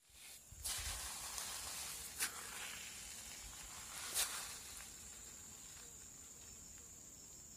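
Faint outdoor background hiss that swells about a second in and then slowly fades, with a thin steady high whine throughout and two light clicks.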